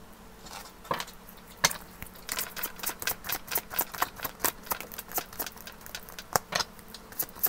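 A tarot deck shuffled by hand: a quick, irregular run of light card clicks and taps that gets busier from about two seconds in, with a card laid down on the table.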